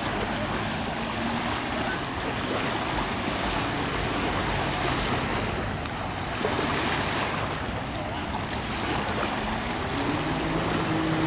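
Steady rushing noise of river water and wind on the microphone. A faint low hum comes in near the end.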